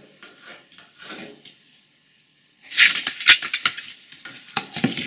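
A dog's claws scrabbling and clattering on a hard floor as it dashes off: a quick run of sharp clicks and knocks starting a little past halfway, with a few more near the end.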